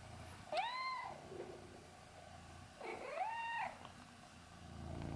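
Domestic long-haired cat meowing twice, short calls that rise and fall in pitch, about half a second in and again about three seconds in. Soft purring runs between and after the calls.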